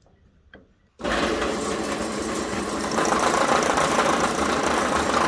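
A small electric power tool switches on suddenly about a second in and runs steadily and loudly, with a rough, even noise.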